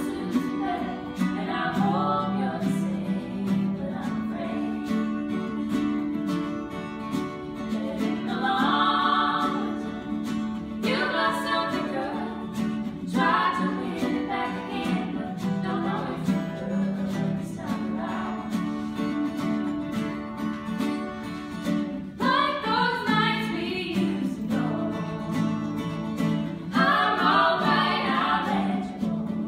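Live acoustic performance: a small group of voices singing together over two strummed acoustic guitars, in sung phrases with short breaks between them. The sound carries the reverberation of a hall.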